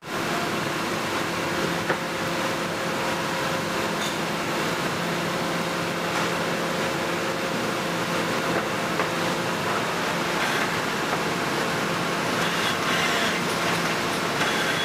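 Steady hum and rush of cabinet-factory machinery, holding several even tones, with a few light knocks of wood parts being handled, the sharpest about two seconds in.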